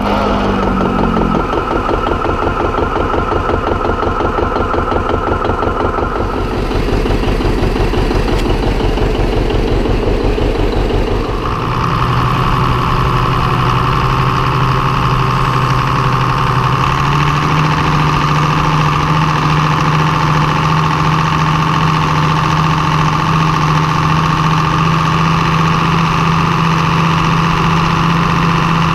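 Tractor engine running steadily. Partway through, the sound changes to a smoother note with a steady high whine, and a few seconds later its low hum steps up in pitch.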